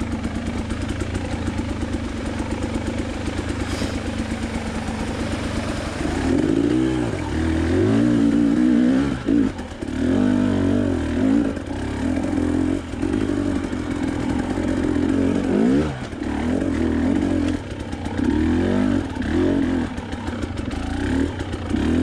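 KTM 300 TPI two-stroke dirt bike engine, running steadily at first, then from about six seconds in revved up and down over and over with short throttle chops as the bike rides a rocky single-track trail.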